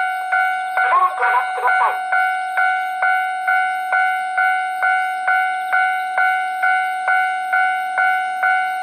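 Japanese level-crossing warning bell ringing in an even electronic clang, about two strikes a second, steady in pitch. About a second in, the crossing's recorded voice announcement speaks briefly over the bell.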